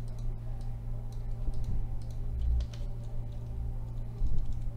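Typing on a computer keyboard: scattered light keystrokes over a steady low hum.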